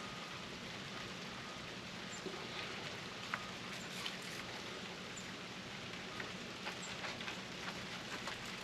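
Steady patter of light rain, with a few faint small clicks scattered through it.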